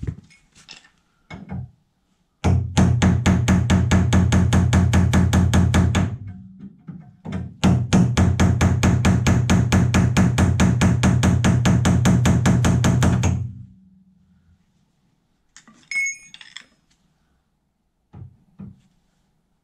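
Rapid, even chiselling blows on a car's sheet-steel sill, in two long runs of several seconds each, with a few light metallic clinks near the end.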